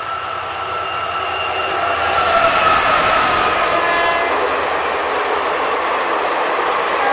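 A WDG4 diesel locomotive hauling an express sounds its horn as it passes at speed, and the horn's pitch drops as the locomotive goes by. The horn stops about four seconds in, leaving the rush and clatter of the coaches running past in heavy rain.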